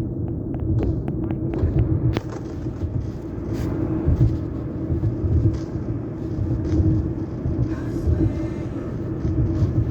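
Steady low road and engine rumble inside a moving car's cabin, with a constant hum and a few light clicks in the first couple of seconds.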